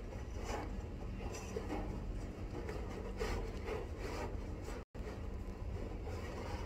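Cardboard boxes and other discarded items rubbing and scraping as they are shifted about in a dumpster, in short irregular scrapes over a steady low rumble. The sound cuts out for an instant about five seconds in.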